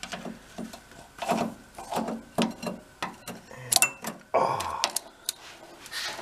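Steel roller chain clinking and rattling in irregular bursts as it is fished and pulled into place with a flexible pickup tool, with a louder clatter about four seconds in.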